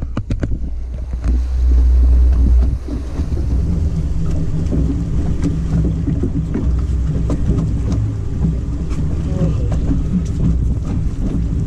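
Boat's outboard motor running at low revs with a steady hum, under wind buffeting the microphone. A few quick clicks and knocks right at the start.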